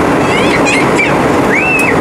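Steady, loud roar of an Airbus A320's IAE V2500 turbofan engine and rushing airflow in flight, heard inside the cabin at a window seat beside the engine. A few brief high gliding squeaks sound over it twice.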